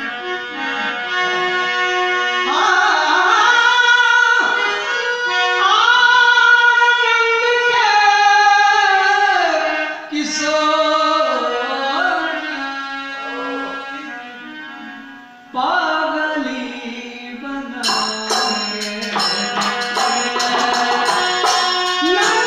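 Bhojpuri purbi folk song: a singer holds long, sliding ornamented notes over steady instrumental accompaniment. A fast percussion beat comes in near the end.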